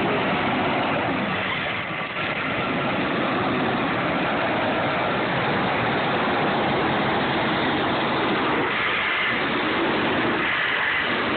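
Cal Fire wildland fire engine's diesel engine running steadily as the heavy truck drives slowly past close by.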